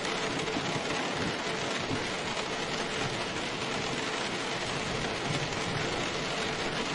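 Steady rain, an even unbroken hiss, with a faint steady hum underneath.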